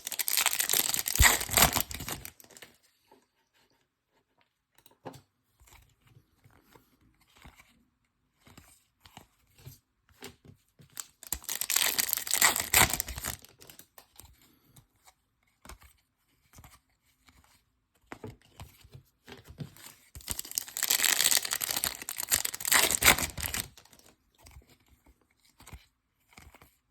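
Trading-card pack wrappers being torn open and crinkled, three times: near the start, about eleven seconds in and about twenty seconds in, each tearing lasting two to three seconds, with faint clicks of the cards being handled in between.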